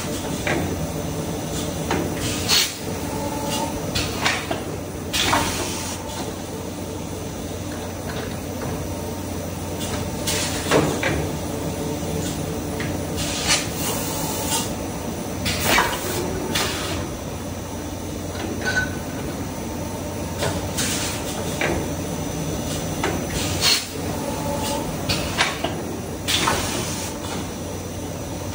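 Plastic ball production machinery running with a steady hum, broken every few seconds by short hisses of air and clunks.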